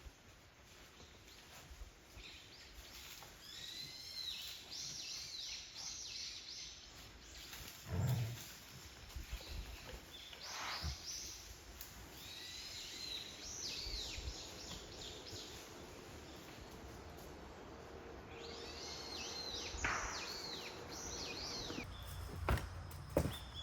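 Wild birds calling in three bursts of quick, high, downward-sweeping chirps. A few dull thumps fall in between.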